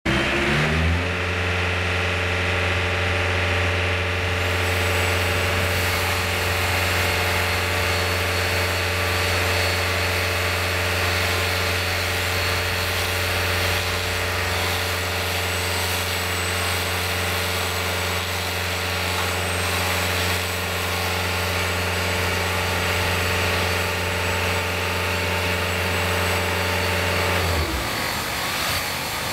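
A motor starts up, rising in pitch over about a second, runs at one steady pitch, then winds down and stops near the end.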